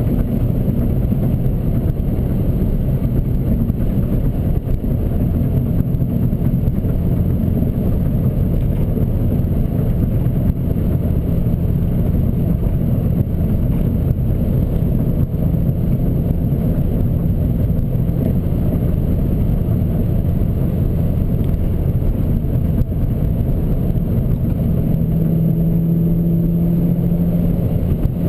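Ford Focus ZX3 four-cylinder engine breathing through a race header and a 2.25-inch Focus Sport stealth exhaust, heard from inside the cabin while driving at a steady pace: a continuous low exhaust drone with road noise. Near the end a steadier humming drone comes up for a few seconds.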